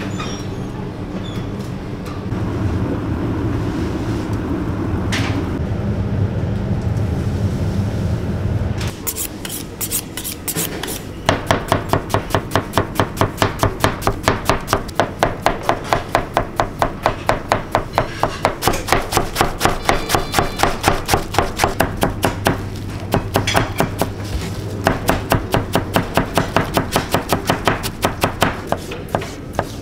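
A large knife chopping onion and then parsley on a white cutting board, in quick, even strokes of about three a second with a few short pauses. These strokes start about nine seconds in, after a steady low hum.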